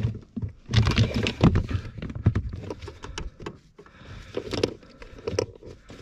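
Irregular knocks, clicks, scrapes and rubbing of hands working tight rubber coolant hoses, bit by bit, onto the pipes of a new car heater core.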